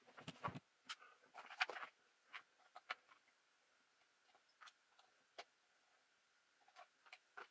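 Scattered light clicks and taps of hands handling an RC truggy's plastic chassis and a small tool, a quick cluster in the first two seconds and then only a few isolated ticks.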